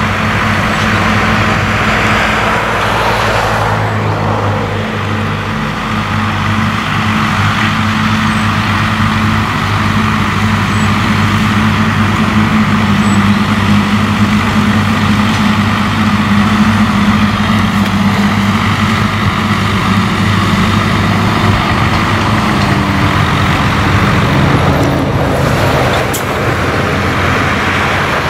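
Tractor engine running steadily under load while a front-mounted mulcher chops through tall grass and weeds, a low engine drone under a dense rushing whirr from the rotor.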